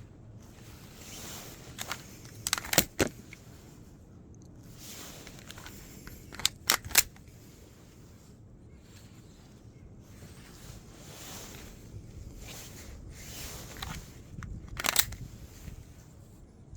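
A Beretta pistol being handled, giving three short clusters of sharp clicks and clacks: two or three in quick succession each time. Heavy breathing close to the microphone rises and falls between them.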